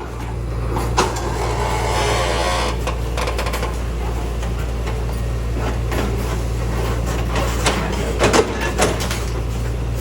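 Backhoe's diesel engine running steadily as it moves rocks, with a few sharp knocks and clanks from the bucket and rocks, the loudest a cluster about eight to nine seconds in.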